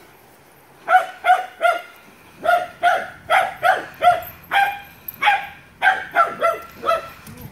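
A dog barking during play: three quick barks about a second in, then after a short pause a run of about a dozen more, one every third of a second or so.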